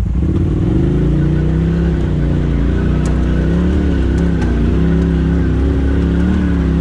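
Polaris RZR side-by-side's engine picking up from a low idle a moment in, then pulling steadily at crawling speed with small rises and dips as the throttle is worked. A few faint clicks sound over it.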